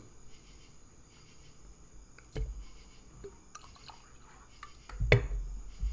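Mostly quiet, with a faint steady high-pitched tone, broken by two knocks: a light one about two seconds in and a louder thump about five seconds in.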